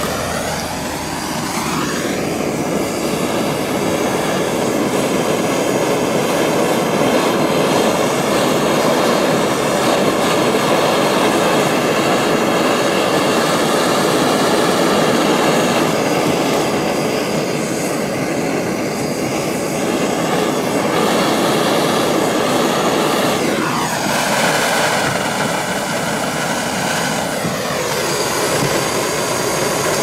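Handheld gas torch burning with a steady loud rushing hiss as it heats a copper battery-cable lug for soldering. A whistling tone rides on the flame, rising in pitch about two seconds in and dropping again around twenty-three seconds in.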